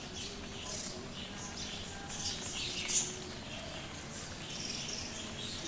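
Birds chirping and twittering, many short high calls in an irregular run, one a little louder about three seconds in.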